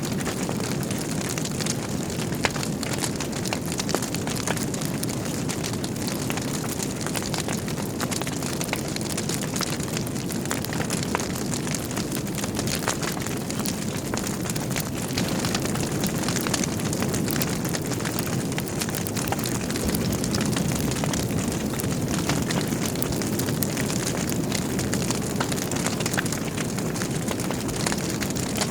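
Wood fire burning in a fireplace: a steady low rush of flame with many small sharp crackles and pops from the burning logs scattered throughout.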